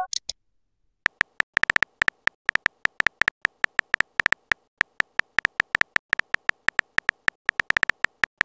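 On-screen keyboard tap sounds of a texting app: a fast, irregular run of short clicking ticks, one per typed letter, starting about a second in. A brief high blip comes at the very start.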